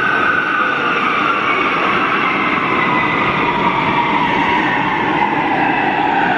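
Warsaw Metro train pulling into an underground station. Its electric drive whines in several tones that fall steadily in pitch as it slows, over the steady loud noise of the train running along the platform.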